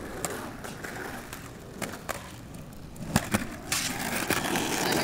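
Skateboard wheels rolling over concrete, with several sharp clacks from the board, the loudest about three seconds in; the rolling grows louder in the last second or so.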